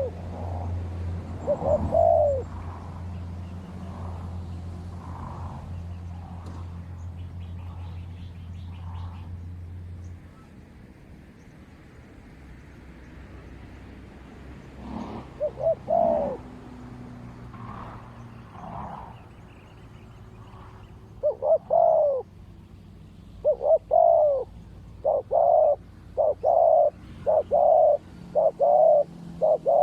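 Spotted doves cooing, the low notes scattered at first and then coming in a close run of about one a second over the last eight seconds, typical of a decoy and a wild dove calling back and forth. A steady low engine hum runs underneath for the first third and stops about ten seconds in.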